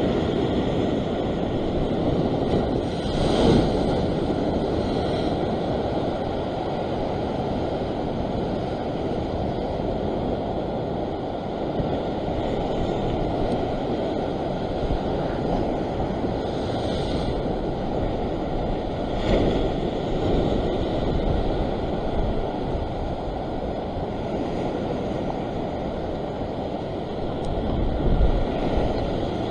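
Ocean surf washing and breaking against a rock shore, with wind buffeting the microphone. Waves break more loudly about three seconds in, again around twenty seconds in, and near the end.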